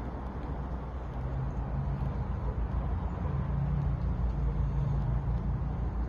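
Steady low mechanical rumble of a running motor or engine, with a hum that swells and fades a few times.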